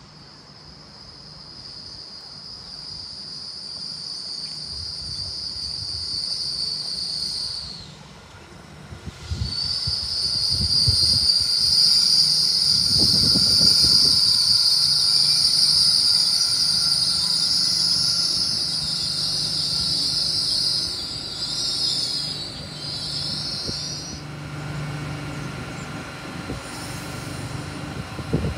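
GWR Class 800 intercity train pulling into a station and slowing to a stop, with a high, steady squeal from the train that drops out briefly about eight seconds in and ends after a wavering patch, over a low hum from the train.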